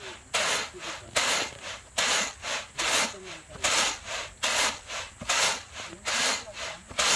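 Mung beans being winnowed in a woven Korean winnowing basket (키): each toss sends the beans sliding and rattling across the basket in a short rushing burst, in a steady rhythm of about one and a half tosses a second.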